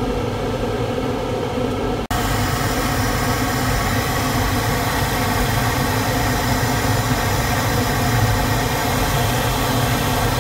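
Steady rush of air over the canopy inside a Duo Discus glider cockpit in fast gliding flight, with no engine running. About two seconds in there is an abrupt break, after which the hiss is brighter and a little louder.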